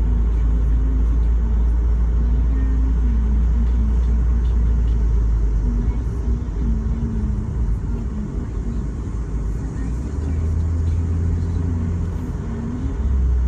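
A car driving: a heavy low rumble with an engine note that rises and falls. The rumble eases about six seconds in and comes back near the end.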